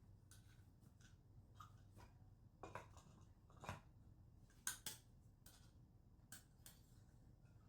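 Faint, irregular light clicks and scrapes of a Lansky guided-system leather strop being drawn over a clamped knife edge in downstrokes, the strongest stroke about halfway through.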